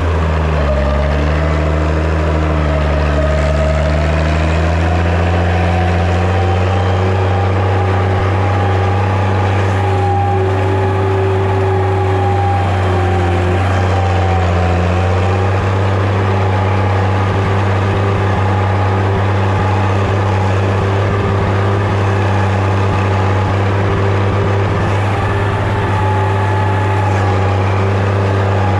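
Massey Ferguson 95X tractor's six-cylinder diesel engine running steadily under load while pulling a five-shank subsoiler through hard ground. Its pitch rises slightly over the first few seconds, then holds steady.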